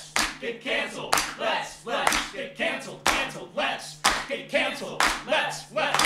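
Hands clapping in a steady rhythm, about two claps a second with a stronger one each second, and voices singing or chanting along over the claps.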